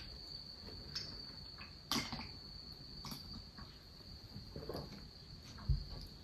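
Crickets trilling steadily at a high pitch, with a few faint clicks and a short low thump near the end.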